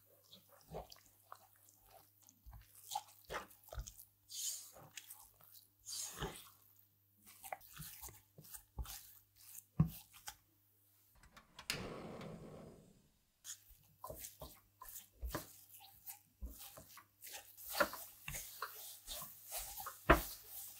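Silicone spatula stirring and pressing choux pastry dough in a nonstick pan: irregular soft scrapes, squelches and taps against the pan as the flour and melted butter are worked into a thick paste. A denser, longer stretch of mushy noise comes about halfway through.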